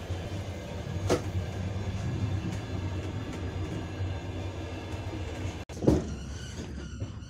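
Passenger railway carriage running, heard from inside: a steady low rumble with a knock about a second in and a louder knock near six seconds. A high, even tone comes in near the end.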